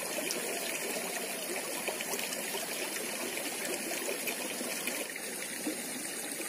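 Shallow stream running and trickling steadily over stones.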